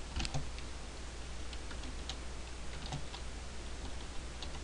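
A few scattered keystrokes on a computer keyboard, typed slowly one at a time over a faint steady low hum.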